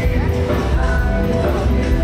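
Loud music with heavy bass and held notes, rock-like in character.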